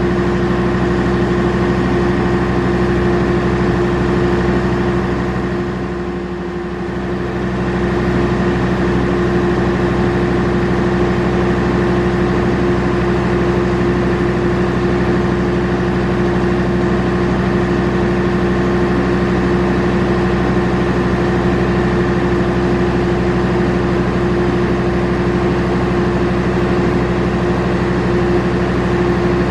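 Diesel engine of a standing passenger train idling with a steady, even hum, dipping slightly about six seconds in.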